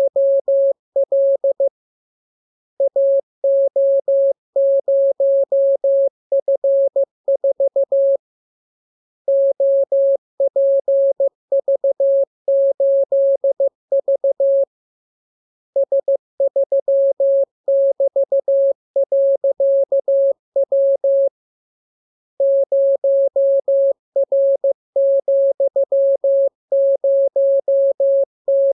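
Morse code practice transmission: a single steady mid-pitched tone keyed on and off in dots and dashes, sent in character groups about six seconds long with pauses of about a second between them.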